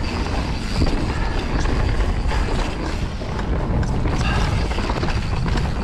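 Mountain bike rolling fast down a dirt trail: tyre noise on the dirt with irregular rattles and knocks from the bike, under a heavy rumble of wind on the action camera's microphone.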